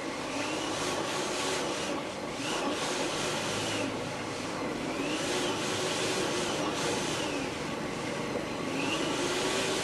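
Vacuum cleaner motor running while it sucks up water, a steady rushing whine whose pitch rises and falls in slow swells several times.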